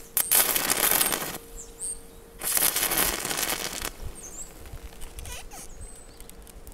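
Stick-welding arc fed by four car batteries in series at 48 volts, crackling and hissing as the rod burns against steel, in two bursts of about a second and a half each, then stopping.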